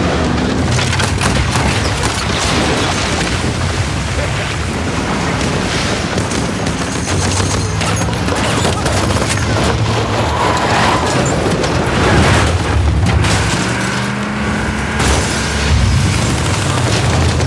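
Battle sound: booms and rapid bursts of gunfire over the low, steady drone of a vehicle engine.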